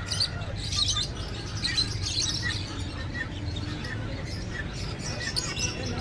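Caged pet birds chirping, many short high tweets overlapping, over a low steady hum.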